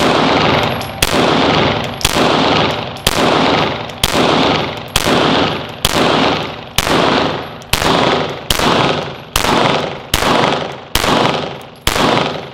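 Ruger Security-9 9mm pistol firing slow, aimed single shots, about a dozen, roughly one a second. Each shot has a long echoing tail in the enclosed indoor range.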